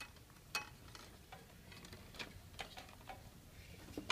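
Light, irregular clicks and taps of a charging cable and the plastic and metal parts of a charging table being handled, about seven scattered across a few seconds.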